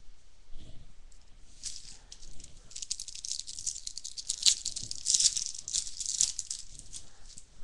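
Crinkling and crackling of a plastic trading-card pack wrapper being handled and torn open. It builds up about two seconds in and dies away after about six seconds.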